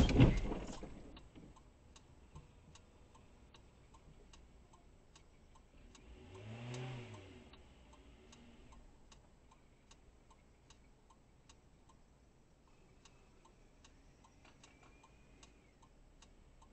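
The crunch of a car colliding with the parked dashcam car dies away in the first second, followed by faint, regular ticking. About seven seconds in, a car engine revs up and back down briefly.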